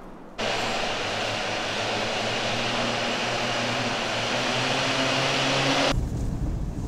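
A steady rushing noise with a faint low hum underneath, starting abruptly and cutting off abruptly about six seconds in. A low rumble takes over near the end.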